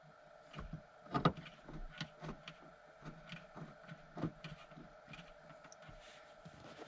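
Scattered light clicks and knocks of hand work on a VW T5 van's sliding-door rear roller hinge and its bolts, at irregular intervals, with the clearest knocks about a second in and about four seconds in.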